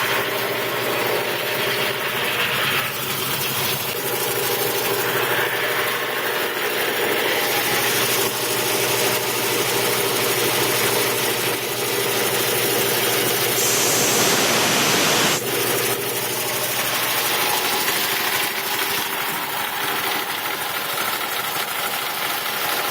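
Belt-driven Quincy air compressor running steadily as it builds tank pressure. About two-thirds of the way through, a short loud hiss of air sounds, which fits the automatic tank drain blowing off.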